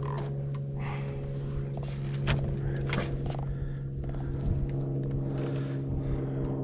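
Boat motor running with a steady, unchanging low hum, with a few sharp knocks and clicks on the boat, the strongest about two and three seconds in.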